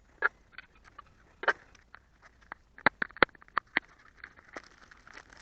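A series of sharp, irregular clicks and knocks, with a soft rustling from about four seconds in.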